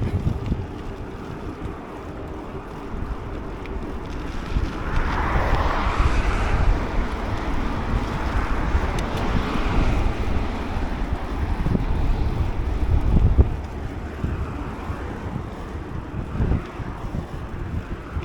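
Wind buffeting the microphone of a camera on a moving bicycle, a gusty low rumble, with a louder rush swelling about five seconds in and fading a few seconds later.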